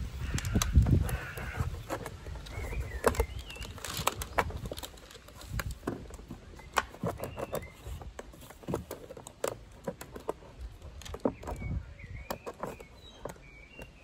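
A craft knife cutting through a plastic milk bottle: irregular clicks and scratchy scrapes as the blade is worked along the cut, with a heavier bump near the start. Birds chirp briefly a few times in the background.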